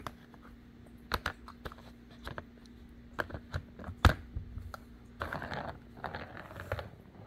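Light-up plastic ball clicking and knocking around a Catit Senses cat ball track, a run of irregular sharp clicks with one loud knock about four seconds in, and a brief rustle a little later.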